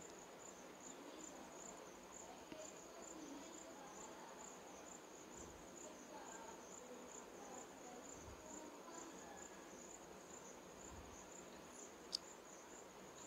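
Faint cricket chirping: a steady, high, evenly pulsing trill over near silence, with one sharp click near the end.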